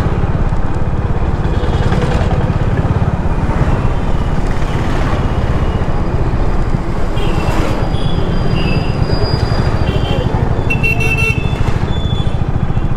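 Road traffic with a steady low rumble of engines and road noise throughout. Several short vehicle horn toots sound in the second half.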